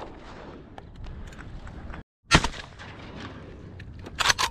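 A Verney Carron Veloce 12-gauge semi-automatic shotgun fires a sharp, loud shot about halfway through. Another, quieter bang comes near the end, over a low outdoor rumble.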